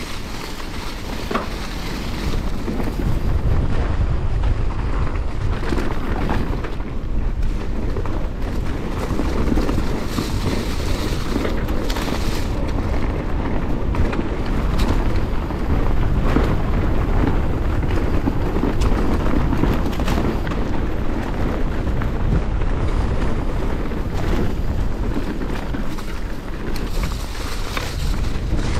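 Wind buffeting a chest-mounted GoPro's microphone as a Commencal Meta SX V4 mountain bike descends a dirt trail, with tyres rolling over dirt and dry leaves and the bike rattling and knocking over bumps. The rumble grows louder over the first few seconds as speed picks up, then stays steady.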